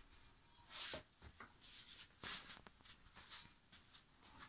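Faint rustling and shuffling of a person getting up off a carpeted floor and moving about, a few soft irregular swishes with small clicks among them.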